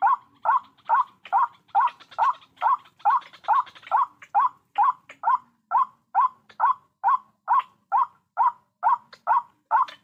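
White-breasted waterhen call: short, evenly spaced 'kwak' notes repeated a little over twice a second without a break.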